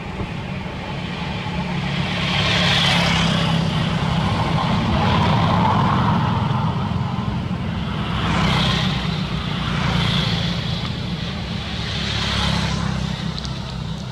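Road traffic: a steady low engine rumble with vehicles passing one after another, each swelling up and fading away, about five times.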